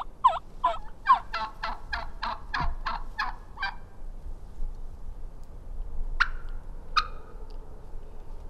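A turkey yelping: a run of about a dozen quick notes, roughly three a second, that stops about four seconds in. A couple of seconds later come two sharp clicks.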